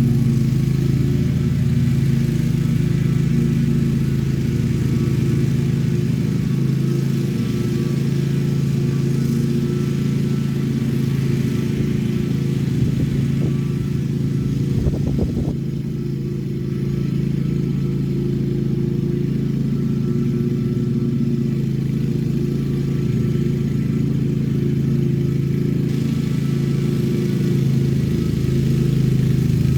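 Petrol lawn mower engine running steadily under load, with a brief unsteadiness about halfway through.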